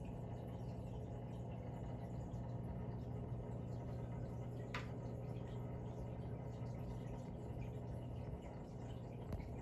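Steady low electrical hum of running aquarium equipment, such as the tank's pump, with a brief high tick about halfway through.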